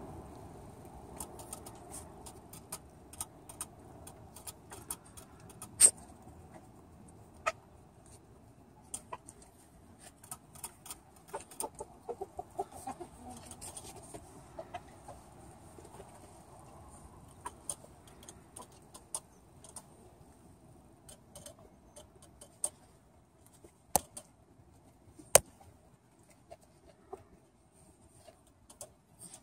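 Hens clucking softly in a coop, with short pitched calls bunched a third of the way in. Scattered sharp taps and clicks, a few of them much louder than the clucking.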